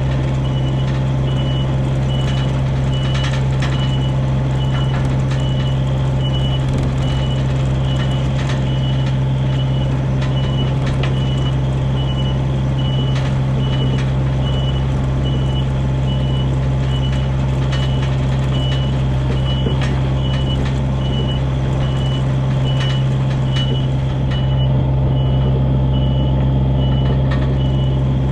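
Diesel engine of heavy equipment running steadily while a backup alarm beeps at an even rate throughout.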